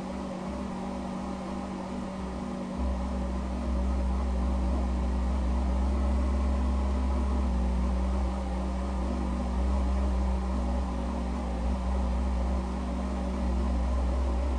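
Ceiling fan motor running with a steady electrical hum, joined about three seconds in by a deeper low rumble.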